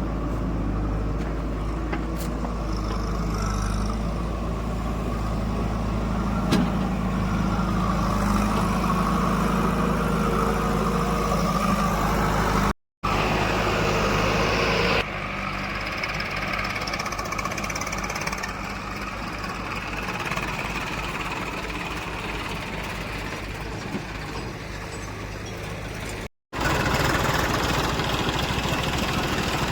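Heavy diesel engine running at a steady speed. The sound drops out for a moment twice and is quieter for a stretch from about fifteen seconds in.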